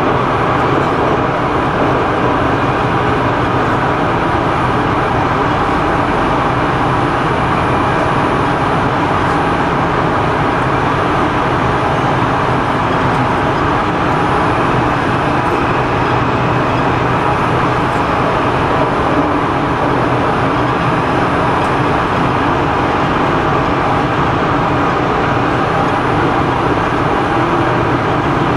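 Prague metro train running steadily between stations, heard from inside the car: a continuous rumble of wheels on rails with a faint steady hum and no change in speed.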